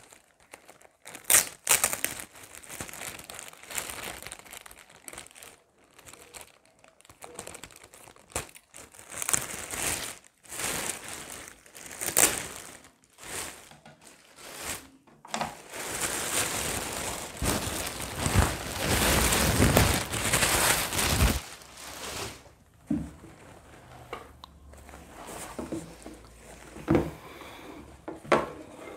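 Clear plastic packaging bag crinkling and rustling as it is cut open and pulled off a fabric baby carrier, with a few sharp scissor snips in the first half. The longest, loudest stretch of crinkling comes about two-thirds through.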